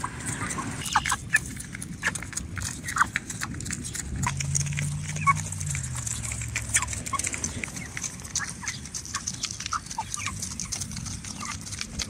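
Meat chickens pecking feed from a metal trough: a steady run of quick, irregular beak taps and clicks, with brief high peeps scattered among them.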